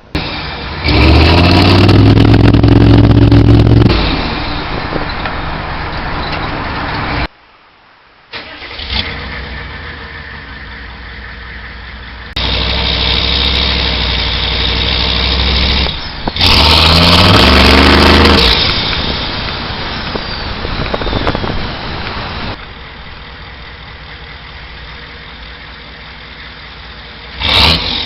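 6.5-litre turbo diesel V8 in a 1999 Chevrolet C2500, exhausting through a single 5-inch smokestack, revved up hard several times between stretches of running at lower revs. A high whistle falls in pitch as the revs come down.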